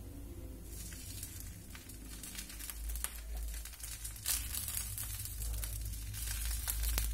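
Steel ladle spreading potato masala over a dosa on a hot tawa: soft scraping and crinkling under a light sizzle, with a few sharp clicks of the ladle against the pan.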